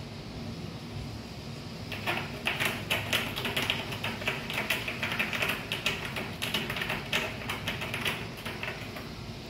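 A cat clawing and pawing at a round corrugated-cardboard scratcher: a fast, uneven run of dry scratching clicks that starts about two seconds in and stops near the end.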